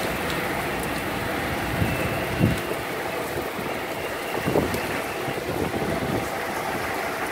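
Steady rush of storm wind and heavy rain on an open ship deck, with low gusts buffeting the microphone about two and a half and four and a half seconds in.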